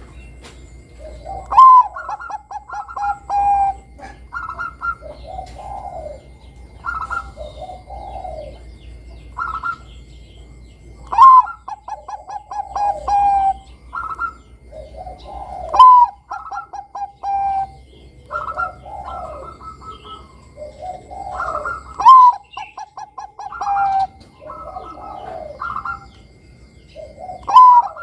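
Zebra dove (perkutut Bangkok) singing its cooing song: a string of phrases, each opening with a loud high note followed by a quick run of short staccato coos, with softer, lower coos in between.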